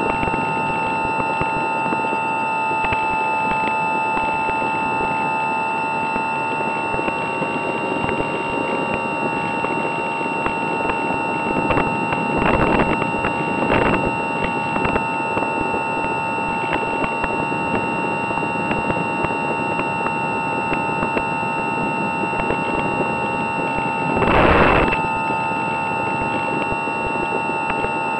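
Easy Star 2 model plane's electric motor and pusher propeller running at steady throttle, a constant high whine, heard from the onboard camera with air rushing past. Three brief louder gusts of wind noise come about halfway through and again near the end.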